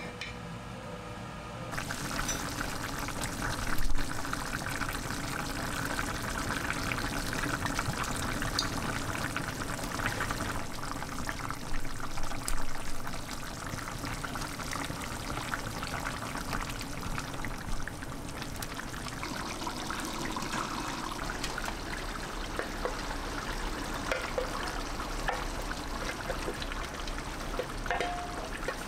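Tomato and red-wine beef stew simmering and bubbling in an enamelled cast-iron pot on a gas burner, a steady wet bubbling. A single sharp knock about four seconds in, and a few light clatters near the end as sliced mushrooms are tipped into the pot.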